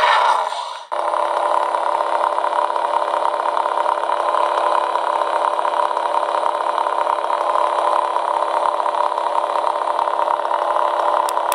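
Star Wars lightsaber sound-effect IC playing the blade's steady electronic hum through a small speaker. After a short different sound in the first second, the hum holds at one pitch.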